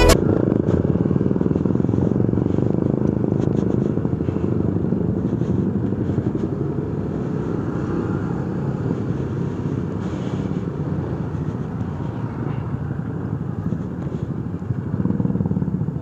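Motorcycle engine running as the bike rolls at low speed, a steady low rumble that grows a little louder near the end.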